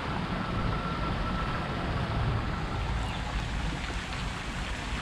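Wind buffeting the microphone with a low rumble over a steady hiss of rain. A faint, thin steady tone fades out about halfway through.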